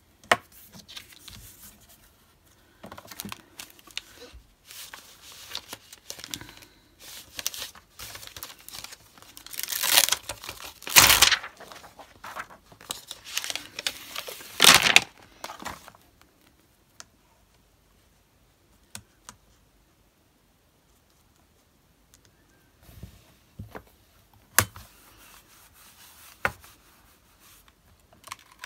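Crinkling and peeling of a clear plastic stamp sheet being handled, in rustling bursts that are loudest around the middle. After a quiet stretch, a few sharp clicks follow near the end.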